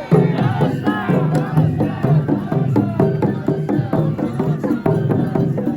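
Japanese festival music at a portable-shrine parade: a steady beat of drum and wood-block strokes, about three a second, under a pitched melody and crowd voices.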